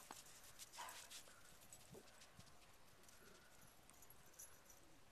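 Near silence outdoors, with a few faint soft thumps in the first couple of seconds.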